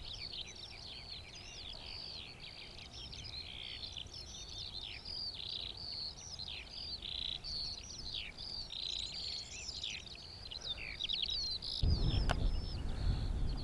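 Eurasian skylark song, a continuous stream of rapid, high warbling and trilling notes. Near the end, a loud low rumbling noise with a sharp click comes in over it.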